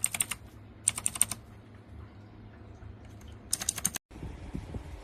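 Mechanical keyboard being typed on in three quick bursts of clicking keystrokes. About four seconds in it cuts off abruptly to a low rumbling noise like wind on the microphone.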